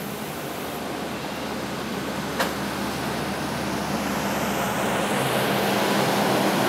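DF11 diesel-electric locomotive running slowly past with its diesel engine humming steadily, the sound mixed with wheel-on-rail noise and growing louder as it passes beneath; one sharp click about two and a half seconds in.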